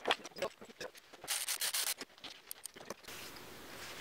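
Hands handling and scraping at a metal brake caliper, with a series of clicks and a loud rubbing, sanding-like rasp lasting about half a second a third of the way in. Near the end the sound cuts to a steady low hiss.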